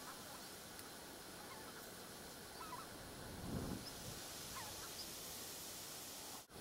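Faint, scattered short honking calls from a flock of wild geese over steady background hiss, with a brief low rumble about three and a half seconds in.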